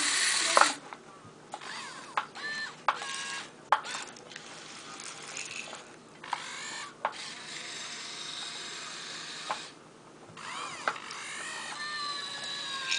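Electric motors of a Kyosho Komatsu remote-control model excavator whining in short spurts as the boom, arm and swing are worked, the pitch rising and falling, with several sharp clicks in between.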